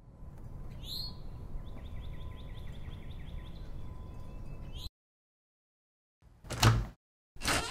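A bird chirping a quick run of repeated calls over a low steady rumble, all cutting off suddenly about five seconds in. After a short silence comes a sudden loud thump, and near the end another loud, noisy sound starts.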